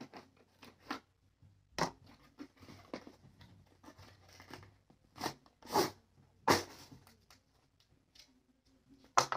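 Small cardboard box being opened by hand and its contents slid out: scattered crackling and rustling, with several short, louder crackles.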